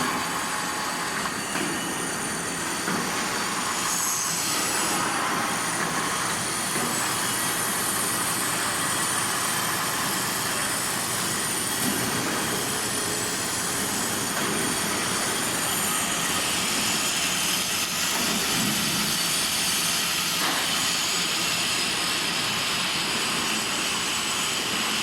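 T8465 brake lathe running and cutting metal: a steady machining hiss with faint high squealing tones from the cutting tool on the turning brake surface.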